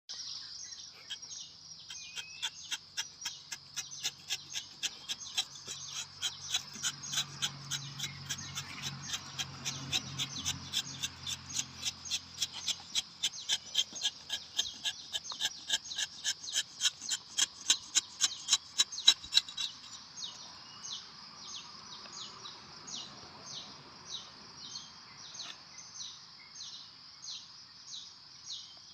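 Rapid, evenly spaced high-pitched chirping, about three chirps a second over a steady high drone, slowing to about one and a half a second after about twenty seconds. A faint low hum comes and goes in the middle.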